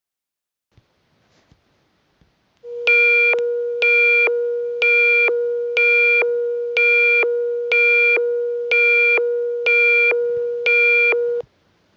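Electronic alert tone: a steady low tone with a higher, buzzy beep pulsing on top about once a second, nine beeps in all. It starts about three seconds in and cuts off suddenly near the end.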